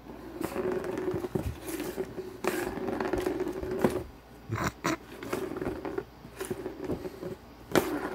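Small plastic ball rolling round the circular plastic track of a cat scratcher toy, a steady rolling rumble, with sharp knocks about halfway and near the end as a kitten bats at it.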